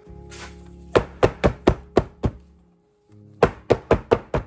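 Batter-filled 8-inch cake pans rapped against the kitchen counter in two quick runs of about four knocks a second, five or six knocks in each, to release air bubbles trapped in the cake batter.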